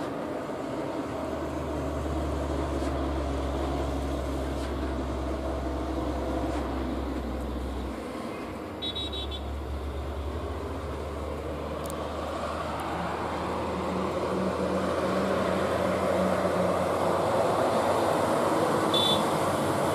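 Diesel engine of a rock-loaded Hino 500 dump truck pulling up a steep grade. It is a steady low drone with a brief dip about eight seconds in, and it grows louder over the second half as the truck comes closer.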